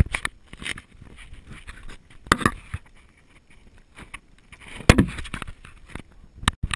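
Handling noise as a small camera is gripped, moved and set down: irregular knocks and rustles, with a sharp knock at the start and another loud one about five seconds in.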